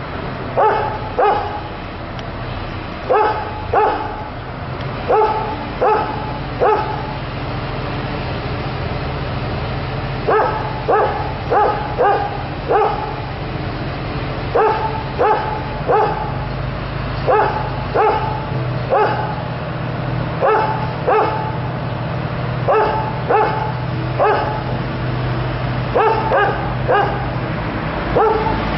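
A dog barking over and over in short runs of two to five barks, a few seconds apart, over a steady low hum.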